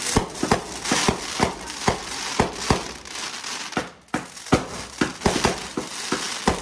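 High Falutin firework battery (cake) firing: a quick, irregular string of shots and bangs, about two a second with a brief lull about four seconds in, over continuous crackling from the bursting stars.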